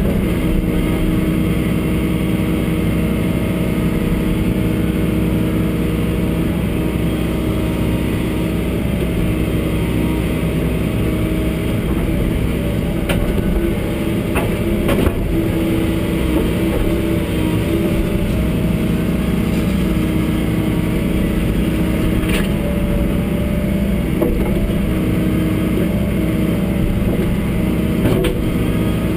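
John Deere 75D excavator's diesel engine running steadily under hydraulic load, heard from inside the cab. A few sharp knocks stand out over it, from the steel track chain being worked by the bucket.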